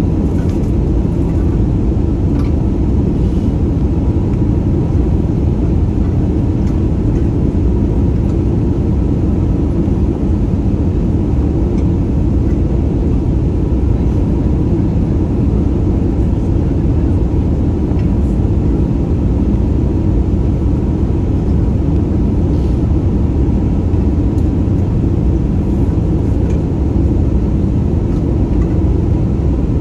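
Steady low rumble of jet engines and airflow inside the cabin of an Airbus A320-family airliner during its landing.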